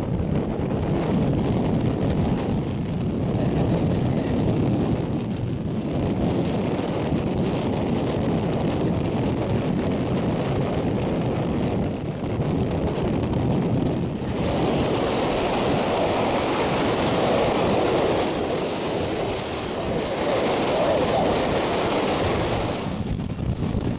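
Wind buffeting the microphone as a steady rushing noise. About halfway through it grows brighter and fuller, swelling twice.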